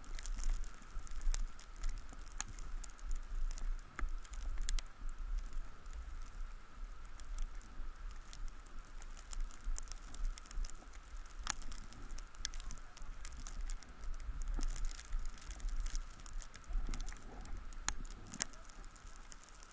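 Slow movement over packed snow: irregular crunching and scattered clicks of gear and boots on snow, over a steady low rumble on the microphone and a faint steady whine.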